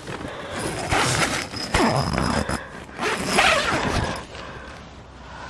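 A tent door zipper is pulled open, with the tent's nylon fabric rustling as it is handled. The sound comes in two rasping stretches, one about a second in and a shorter one around three seconds, then dies down.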